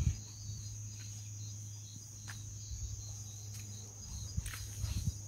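Crickets chirping in a steady high trill over a low steady hum, with a few low knocks near the end.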